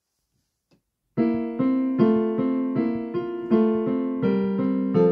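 Digital piano playing a steady run of chords, a new chord struck about every 0.4 seconds, starting a little over a second in after near silence.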